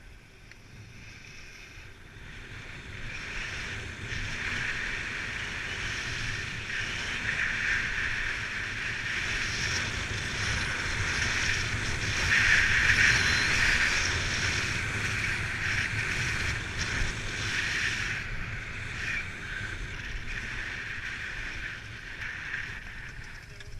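Skis sliding and carving on groomed, packed snow: a steady scraping hiss that builds a couple of seconds in, is loudest around the middle and eases off near the end. A low wind rumble on the camera microphone runs underneath.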